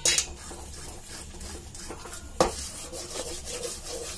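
Wooden spatula stirring and scraping a thick, nearly finished palkova paste around a steel pan, with two louder scrapes, one at the start and one about two and a half seconds in.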